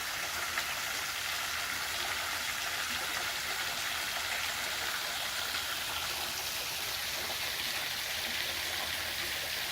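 Pool waterfall spilling steadily into the pool, an even rush of splashing water.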